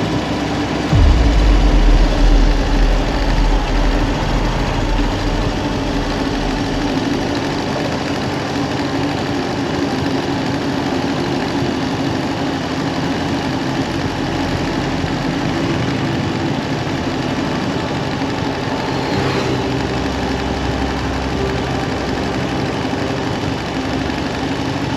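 Harley-Davidson Dyna Fat Bob's V-twin engine running steadily, with a deep low surge that comes in suddenly about a second in and eases off over the next several seconds.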